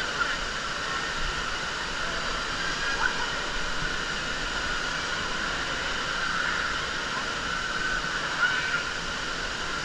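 Steady rush of water in an indoor water park, with faint distant voices mixed into the din.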